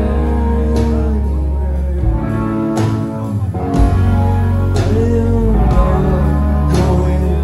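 A live indie rock band playing a slow song: electric guitars, a heavy bass low end and drums with a cymbal or snare hit about every two seconds, under a sung vocal line.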